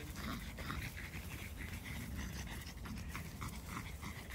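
A dog panting in a steady rhythm, a few breaths a second.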